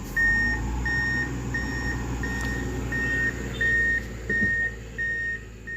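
A truck's reversing alarm beeping evenly, a single high tone about one and a half times a second, over the low running of the truck's engine.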